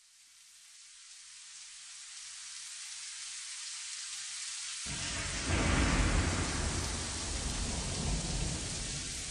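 Steady hiss of air noise fading in, with a low rumbling buffeting joining about five seconds in: wind and rotor wash on the microphone of a camera carried by a low-flying drone.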